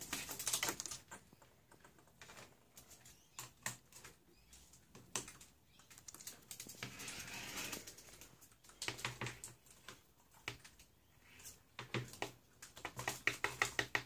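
Dusky lory hopping about a hard tabletop and nudging plastic cage-ball toys: irregular clusters of light clicks and taps, with a quick run of taps near the end.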